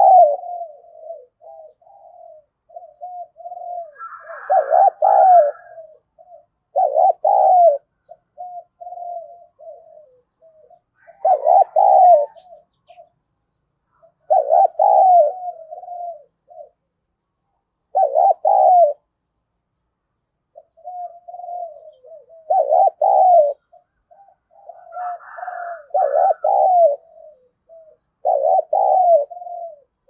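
Spotted dove cooing over and over: loud low coo phrases about every three to four seconds, with softer, quicker coos between them. This is the driving challenge coo that Vietnamese keepers use from a decoy bird to provoke and draw in wild doves.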